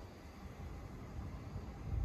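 Outdoor ambience: a low, uneven rumble of wind on the microphone over a faint hiss.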